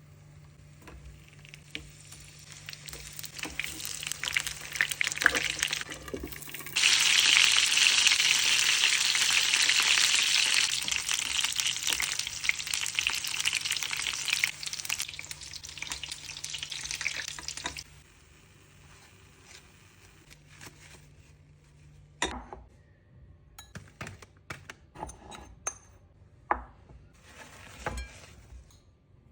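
Sweetcorn kernels frying in hot oil for crispy corn: a crackling sizzle builds, jumps suddenly louder about seven seconds in, and cuts off abruptly a little past the middle. Scattered clicks and clinks of utensils follow near the end.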